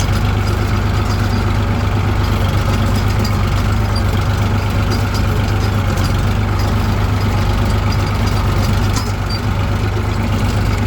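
65 hp Eicher tractor's diesel engine running steadily at a constant speed, with a slight drop in level about nine seconds in.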